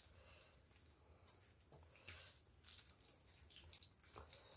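Fingers mashing and mixing rice with egg curry on a plate: faint, soft wet squishing.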